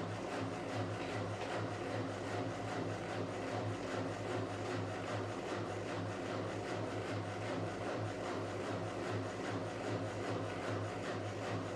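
Whirlpool AWS 71200 front-loading washing machine in its final spin, the motor and drum running at high speed with a steady hum and whir.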